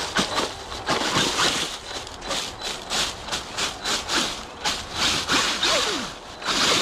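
Traxxas Maxx RC monster truck crawling over rocky, leafy ground: a rough, irregular crunching from its tyres, with the electric motor's whine briefly rising and falling as the throttle is worked.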